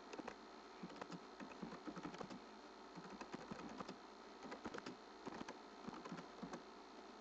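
Typing on a computer keyboard: quick runs of key clicks with short pauses between them, stopping shortly before the end, over a faint steady hiss.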